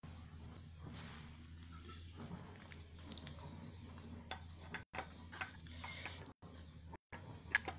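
Insects trilling steadily in a high, even band, with scattered light clicks and knocks. The sound cuts out briefly three times in the second half.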